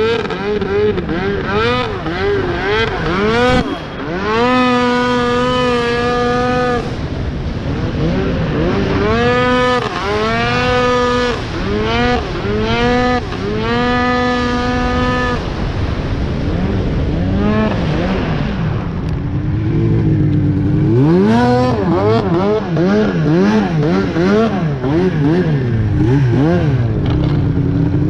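Arctic Cat CFR 1000R snowmobile's two-stroke twin running loud through an aftermarket GGB exhaust. It revs up and holds high revs for a second or more, several times over, then its revs rise and fall quickly and unevenly near the end.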